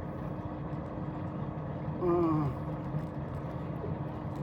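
Steady low motor hum throughout, with one short falling groan from a man about two seconds in, in pain from a fishhook stuck in his finger.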